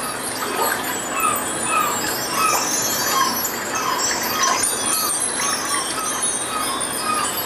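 Bar chimes (a mark tree) swept by hand, a sustained high shimmer. Underneath are short chirping glides that come about twice a second.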